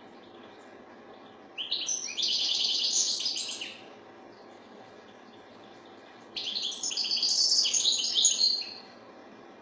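European goldfinch (maknine) singing: two bouts of rapid, high twittering song, each about two seconds long, the first near the start and the second past the middle.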